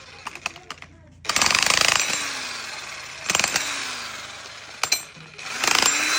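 Jackhammer running in three short bursts of rapid hammering, each under a second long: the first about a second in, the second near the middle, the last near the end.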